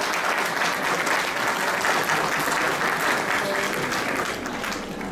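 Audience clapping, thinning out near the end.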